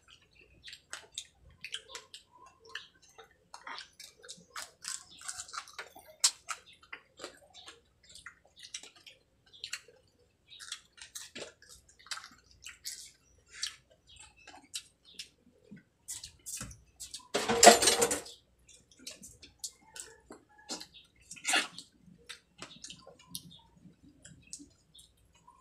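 Wet eating sounds from people picking at fish with their fingers: scattered lip smacks, chewing and finger-sucking clicks. About two-thirds through there is a louder rustle lasting about a second, and a sharper click a few seconds later.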